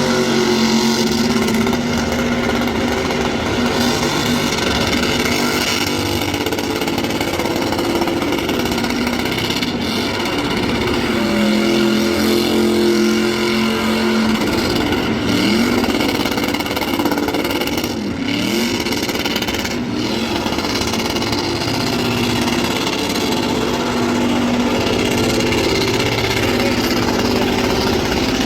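A car engine running loud and steady at high revs, with a few quick dips and rises in pitch about halfway through.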